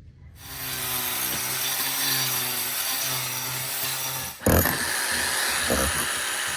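Power tool running under load and cutting: a loud hissing grind over a steady motor hum. About four and a half seconds in the sound changes abruptly and carries on as a similar grinding noise with a few short knocks.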